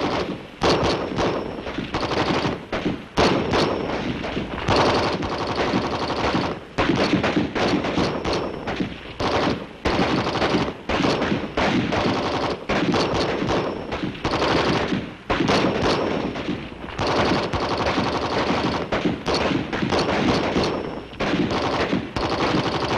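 Dense gunfire from many rifles and automatic weapons, shots and bursts overlapping almost without a break, with a few short lulls.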